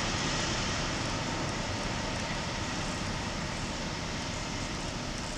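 Blue diesel shunting locomotive running as it hauls a tank wagon away, its engine and the rolling wagon a steady noise that slowly fades.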